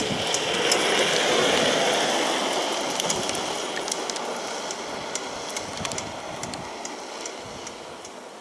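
Engineless gravity kart rolling downhill on asphalt: a steady rush of tyre noise with many small sharp clicks and rattles. It is loudest about a second and a half in, then fades slowly as the kart runs away down the road.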